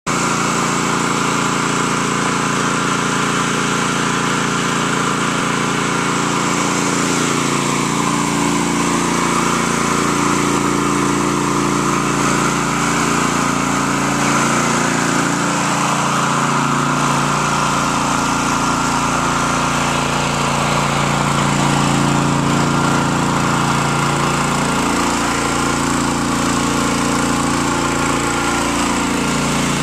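Gas-engine pressure washer running steadily, its engine note wavering slightly, with a steady hiss over it.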